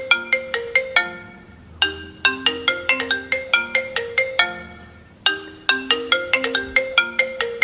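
The iPhone ringtone played from an Android phone: a quick, bright marimba-like melody of struck, fading notes, repeated in phrases that start again about 2 and 5 seconds in.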